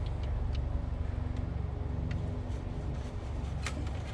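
A few faint, light clicks and taps of parts being handled in an engine bay, over a steady low rumble.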